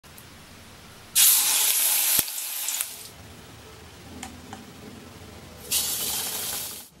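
Gram-flour-battered cauliflower pieces dropped into hot oil in a wok, sizzling in two loud spells, about a second in and again near the end, with a faint hiss between.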